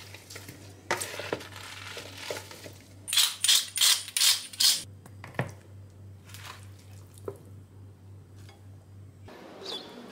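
Metal fork clinking and scraping against a plastic salad bowl while a leafy salad is tossed. There are scattered clicks and a loud run of rustling scrapes a few seconds in, over a steady low hum that stops near the end.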